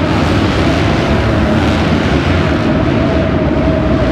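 A pack of motocross dirt bikes racing, their engines merging into a loud, steady drone inside a covered arena.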